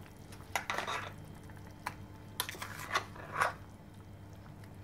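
A spoon scraping and knocking against a grinder jar and a metal pan as ground coconut paste is scooped into simmering curry. There is a longer scrape near the start, then a few short clinks.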